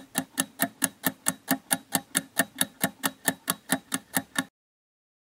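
Countdown timer ticking sound effect, an even clock-like tick about five times a second, marking the seconds left to answer. It stops abruptly about four and a half seconds in.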